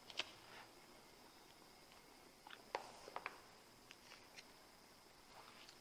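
Near silence: quiet room tone with a faint steady high whine and a few faint, short clicks and taps.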